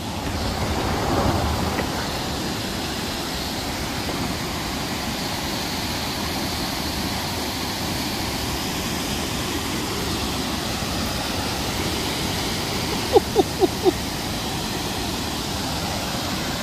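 Large waterfall rushing steadily over rock into a pool, a continuous even noise of falling water. Four quick short sounds come close together near the end.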